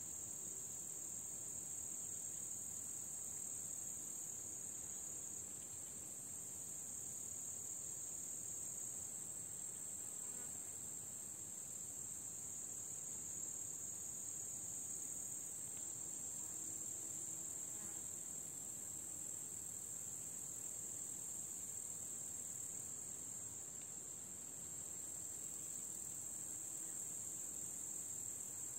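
A chorus of crickets chirring: a steady, unbroken high-pitched buzz.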